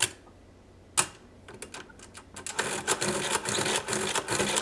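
Monroe L series mechanical adding machine: two sharp key clicks about a second apart, then from about halfway a continuous mechanical clatter as the main crank is turned over and over in repeat mode, adding the same number again and again to multiply it by 8.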